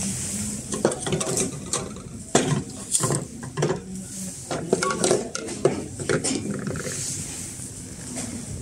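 Shop background: a run of sharp clicks and clattering knocks over a low steady hum, busiest in the first six seconds and thinning out toward the end.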